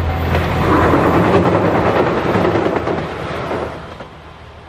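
JR Shikoku 2000 series diesel multiple unit passing close by on a steel girder bridge: a loud rush of wheel and rail noise with clattering, loudest about a second in, then fading quickly as the train goes past.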